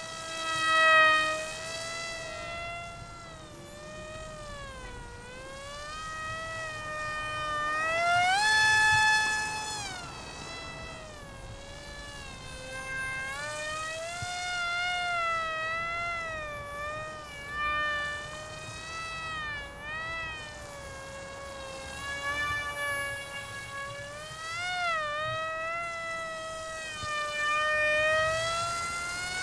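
Small electric RC jet's motor and pusher propeller whining as it flies, the pitch swinging up and down with throttle and passes; the highest and loudest stretch comes about nine seconds in.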